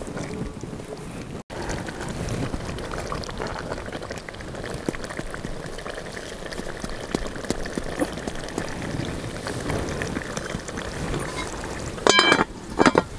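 Chicken karahi simmering in a metal pot over a wood fire: a steady hiss with small scattered pops. Near the end the metal lid is set on the pot with two short ringing clangs.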